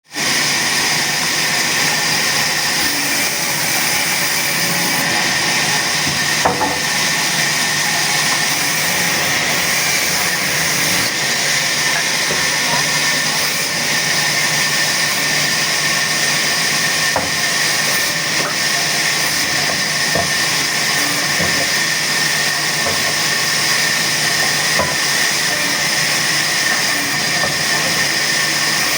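A woodcutting machine running steadily, giving an even hiss with a steady high tone and a few faint clicks.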